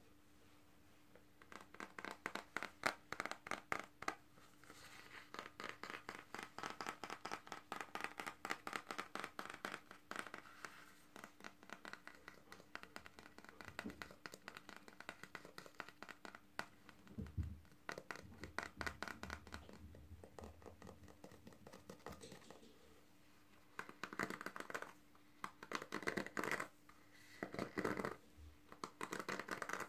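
Fingernails scratching over a plastic paddle hairbrush, across its back and its bristles, in long runs of rapid small clicks. The runs pause briefly a few times, and near the end they come in shorter bursts.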